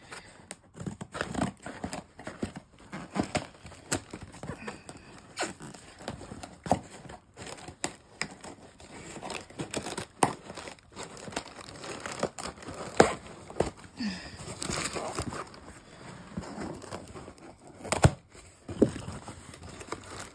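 Scissors cutting packing tape on a cardboard box and the tape tearing away, with the cardboard flaps scraping and crackling. Irregular snaps and crinkles throughout, with two sharp, louder snaps in the second half.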